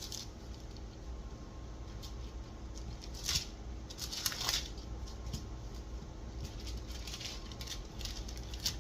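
Soft handling sounds of cheese-cracker dough being divided by hand on a counter: light pats and small clicks, with two brief scrapes about three and four seconds in, over a low steady hum.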